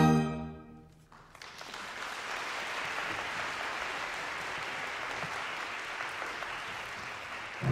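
An orchestral chord fades out within the first second, then the audience applauds steadily.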